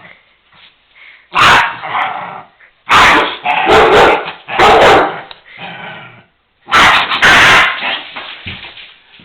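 West Highland white terrier barking in several loud, excited bursts, with brief pauses between them.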